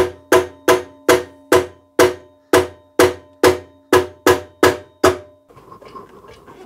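A mallet taps about a dozen times, evenly, two to three times a second, on the timing chain cover of a Hyundai i10's 1.0 L Kappa (G3LA) engine. Each tap leaves a short metallic ring, and the tapping stops about five seconds in. The taps are knocking the cover loose from the sealant bonding it to the block.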